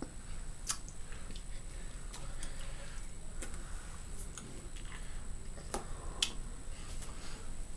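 Several faint, sharp clicks and taps at irregular intervals from a person signing, over a steady low hum: the hands meeting and the mouth moving.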